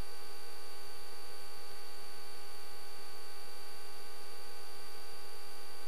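Steady electrical hum and hiss with a thin high whine, unchanging throughout: the noise floor of the aircraft's intercom and radio audio feed.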